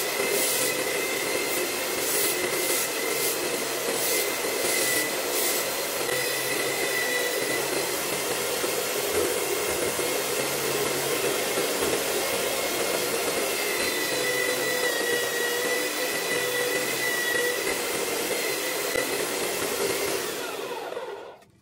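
Corded electric drill (INGCO) driving a homemade belt sander, running steadily with a whine and the hiss of the belt while a piece of wood is sanded against it. Near the end the drill is switched off and the whine falls away to a stop.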